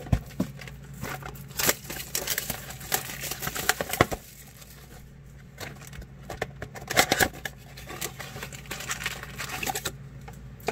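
Plastic wrapping crinkling and tearing as a trading-card blaster box is opened and its packs handled, in irregular crackly bursts, with a sharp knock right at the start and another about four seconds in.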